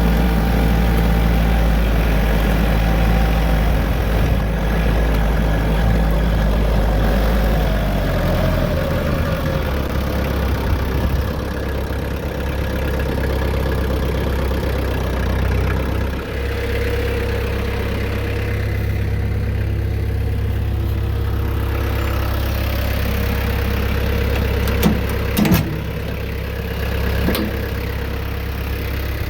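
Tractor engine running, its speed dropping about a third of the way in and then idling steadily, with a few sharp metallic clanks near the end.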